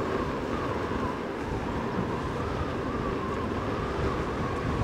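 Gusting wind on the microphone while riding an InMotion V11 electric unicycle, with a faint whine from its hub motor gently rising and falling in pitch.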